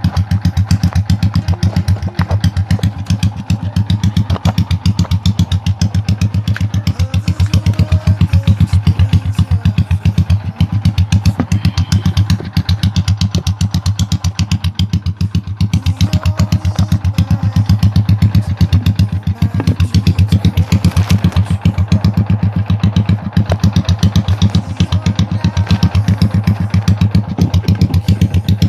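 Honda XRM125's single-cylinder four-stroke engine running at a steady idle through an aftermarket Daeng Sai4 exhaust pipe, a loud, even beat of exhaust pulses that does not rev up.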